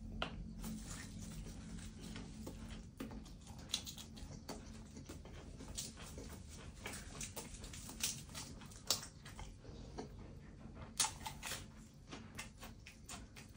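Close-miked chewing of spicy raw shrimp salad: an irregular run of soft, wet mouth clicks and lip smacks, with a faint steady low hum underneath.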